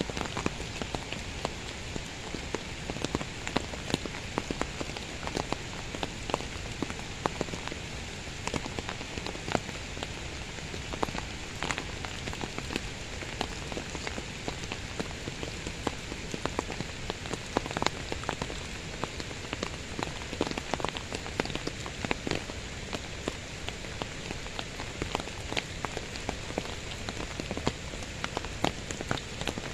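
Steady heavy rain falling, with many sharp ticks of drops landing close by.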